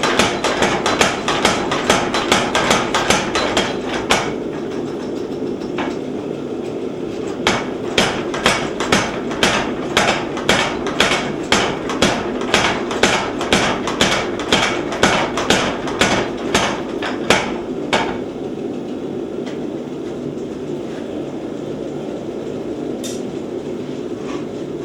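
Little Giant 50-pound power trip hammer pounding a steel bar to draw it down. There is a fast run of blows for about four seconds, a pause with a lone blow or two, then a long run of even blows that stops near three-quarters of the way through. After that the hammer's drive runs on steadily without striking.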